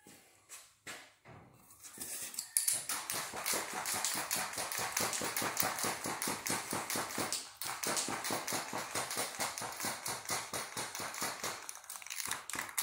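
Aerosol spray can of red oxide primer being shaken hard, its mixing ball rattling in a fast, even rhythm of about five strokes a second, with a short pause near the middle.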